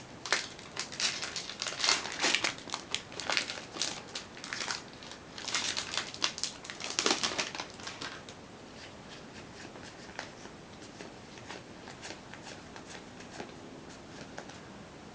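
Magic: The Gathering cards being handled and flipped through in a fresh booster pack: a quick run of rustles and flicks for about eight seconds, then quieter, sparser handling.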